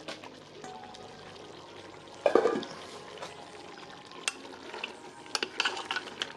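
Curry goat frying and sizzling in a pot while a spoon stirs it, with a loud surge of sizzling about two seconds in, then many short clicks and scrapes of the spoon against the pot.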